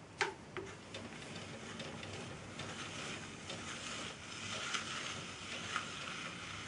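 Myford lathe's mandrel and change-wheel gear train turned slowly by hand with a mandrel handle: a steady faint clatter of meshing gear teeth and ticks. Two sharp metal clicks come just after the start, and two louder ticks come later on.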